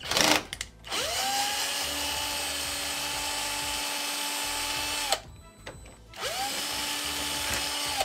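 Cordless drill-driver running twice: it spins up with a rising whine, holds a steady pitch for about four seconds and stops, then runs again for about two seconds, backing a long screw out of the door lock. A short loud clatter comes just before the first run.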